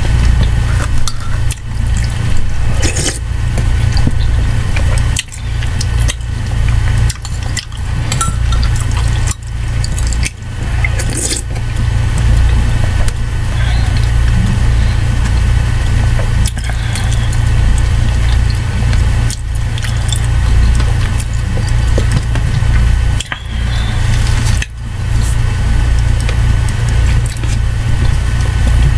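Metal spoon scooping and clinking in a ceramic mug of soup, with liquid sloshing and sips from the spoon, heard as scattered clicks over a loud steady low hum.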